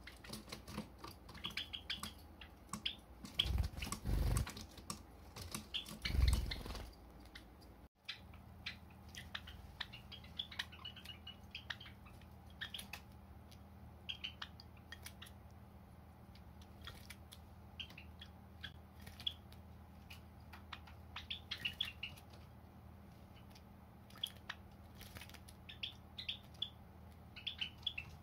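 Pet Java sparrows giving short, high chirping calls again and again, with a few loud low thumps in the first seven seconds.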